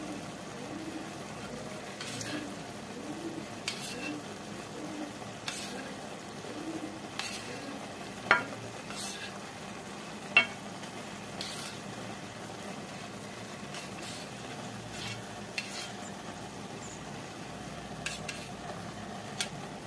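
Rice, tomatoes and garlic simmering in a pan with a steady low sizzle, while cooked mussel meat is spooned in from a bowl: scattered sharp clinks of the spoon against the bowl and pan, the loudest about eight and ten seconds in.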